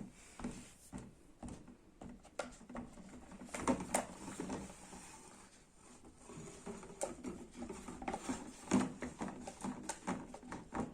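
Spoon stirring thickening shaving-foam slime in a container: irregular clicks and taps, a few louder ones about four and nine seconds in.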